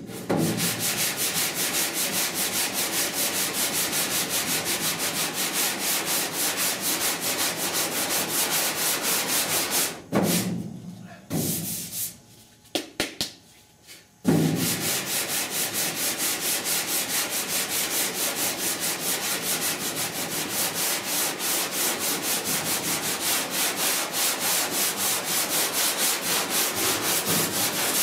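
Hand block sanding of cured body filler on the steel rear panel of a 1966 Ford F100 cab, feathering the filler's edges. The back-and-forth strokes are steady. They stop for a few seconds about ten seconds in, with a couple of light knocks, then start again.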